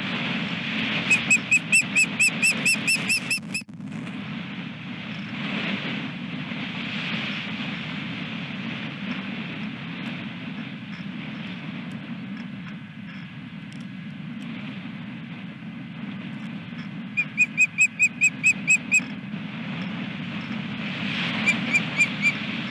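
Osprey calling in three bouts of quick, evenly spaced high whistled chirps, about five a second: a long series about a second in, another about three-quarters of the way through, and a short one near the end. Steady wind noise on the microphone underneath.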